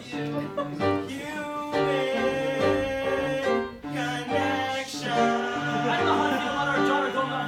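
Music with plucked-string accompaniment over a repeating bass line and a melody line above it.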